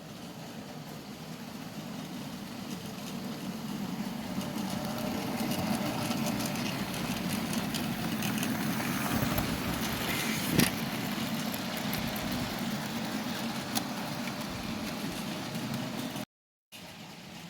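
Bachmann Class 37 model diesel locomotive running on model railway track: a steady motor hum and wheel rumble that grows louder over the first several seconds, with a single sharp click about ten seconds in. The sound cuts out briefly near the end.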